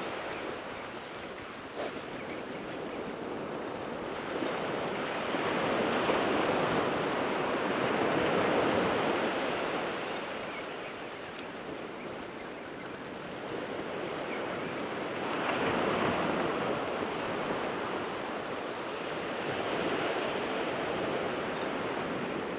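Sea surf breaking on a beach: a steady rush of water that swells and eases every few seconds as waves come in.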